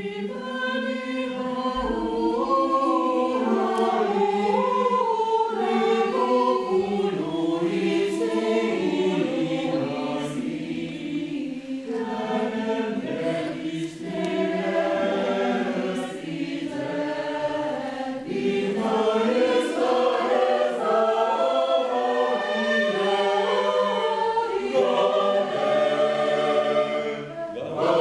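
Mixed choir of women and men singing, several voice parts together, with a short pause for breath near the end.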